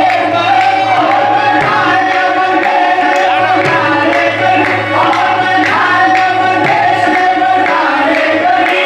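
Live devotional music: singing with tabla and percussion keeping a rhythm over a sustained drone.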